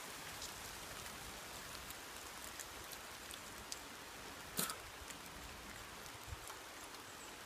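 Steady rain hiss, with a few faint ticks and a sharper click about four and a half seconds in.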